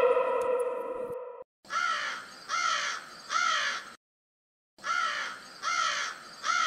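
Crow-like cawing: two identical series of three harsh caws with a silent gap between them. A held, slightly falling musical tone fades out about a second and a half in, before the caws.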